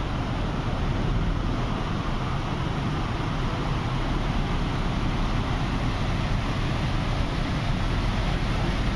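River water rushing over rocky rapids: a steady, even roar.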